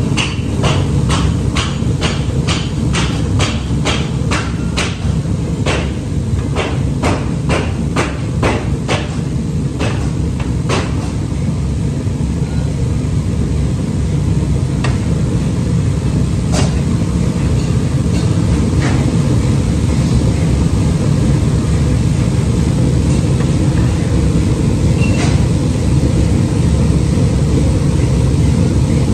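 Forge furnace fire running steadily under a forced-air blower, a continuous low rumble. Over it come quick sharp metal knocks, about two a second, for the first ten seconds or so, then only a few scattered ones.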